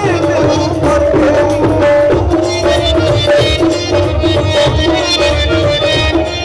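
Live Punjabi music played over an outdoor stage sound system, with a steady drum beat and sustained instrument tones.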